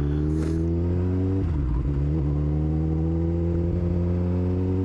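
Suzuki GSX-R 600 inline-four motorcycle accelerating hard through an exhaust with its dB killer (baffle) removed, very loud. The engine note climbs, drops at a gear change about a second and a half in, then climbs steadily again.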